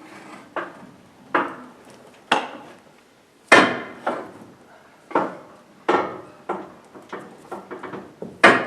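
A wooden wedge being knocked into place: about a dozen sharp wooden knocks at uneven spacing, some under a second apart, the loudest about three and a half seconds in and again near the end.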